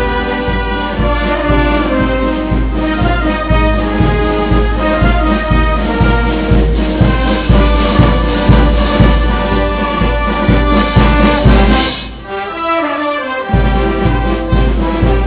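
Brass band music: sustained brass notes over a steady beat. The bass drops out briefly near the end, then comes back.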